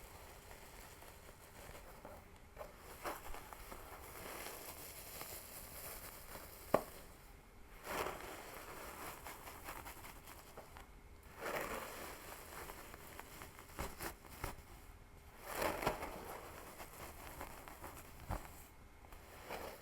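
Fingers scratching a scalp and pulling through hair close to the microphone: uneven bursts of rustling and crackling, with a couple of sharp clicks.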